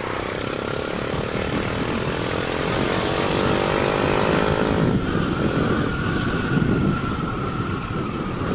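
125 cc motorcycle engine running under way with wind noise. The engine pitch rises slowly as it gains speed, then changes abruptly about five seconds in.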